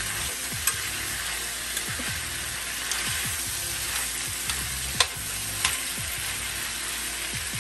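Diced potatoes and smoked sausage sizzling steadily in oil in an enameled pan, stirred with a metal spoon that clicks and scrapes against the pan a handful of times.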